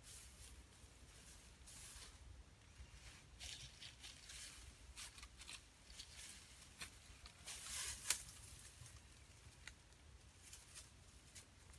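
Faint, scattered rustling and crackling of dry leaves, with one louder rustle about eight seconds in.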